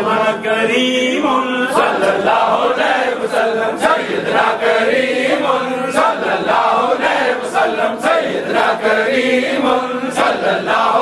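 A congregation of men chanting dhikr together in unison, a short phrase repeated over and over about once a second.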